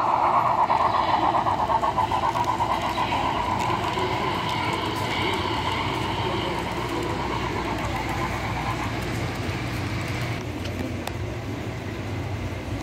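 Model train running past on the layout: the steam locomotive model's running sound is loudest at first and fades as it moves away, while the freight cars roll along the track with a steady low rumble.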